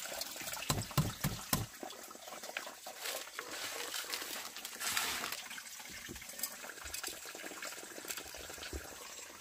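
Water splashing and trickling, with scattered small clicks and knocks, a cluster of stronger knocks in the first couple of seconds.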